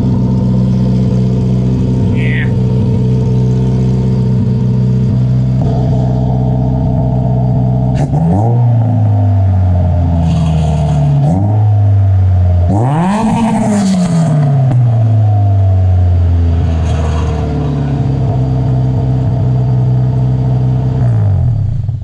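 Car engine idling through an aftermarket HKS muffler, then revved in three quick blips starting about eight seconds in; the third rev goes highest and falls back slowly to a steady idle.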